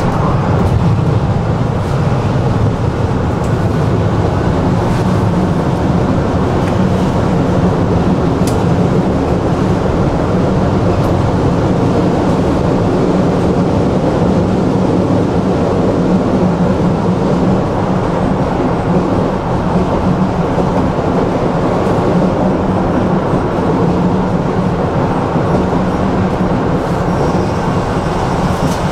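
Tram running on its line, heard from inside the passenger car: a steady, low rolling noise of wheels on rails.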